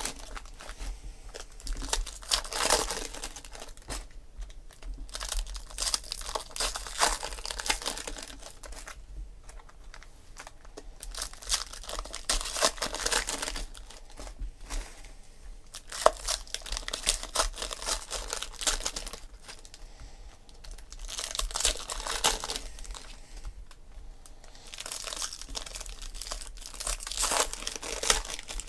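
Foil wrappers of 2016-17 Panini Prizm basketball card packs being torn open and crinkled by hand, in repeated bursts a few seconds long with short quieter lulls between.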